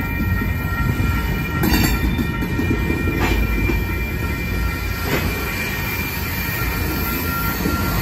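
Freight train's covered hopper cars rolling past at a grade crossing: a steady low rumble of steel wheels on the rails with steady high tones over it, and a few clanks about two, three and five seconds in.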